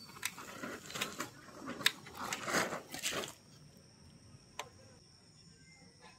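Anar fountain firework spraying sparks, sputtering and crackling with sharp pops, dying out after about three and a half seconds. Then only a faint steady high-pitched tone and a single click.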